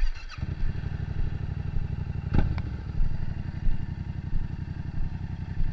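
Yamaha MT-07's parallel-twin engine starting up, catching about half a second in and then idling steadily. A short knock sounds about two seconds in.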